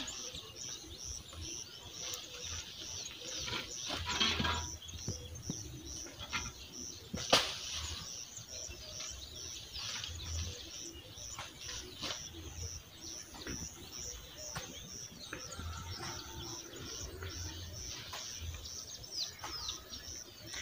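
A bird chirping a high note about twice a second, steadily throughout, among other short bird calls. A few sharp knocks stand out, the loudest about 4 and 7 seconds in.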